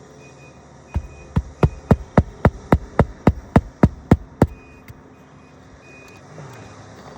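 Roofing hammer driving a roofing nail through an asphalt shingle: about thirteen quick blows in a row, roughly four a second, starting about a second in and stopping by the middle. The nail is being driven back in flush after the shingle has been lifted.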